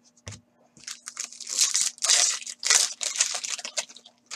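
Foil wrapper of a hockey card pack being torn open and crinkled by hand: a run of loud crackling and tearing bursts lasting about three seconds, after a soft knock near the start.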